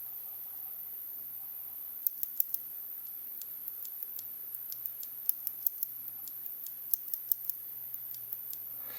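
Gateron blue mechanical keyboard switch pressed by hand, giving a string of sharp, irregularly spaced clicks that start about two seconds in.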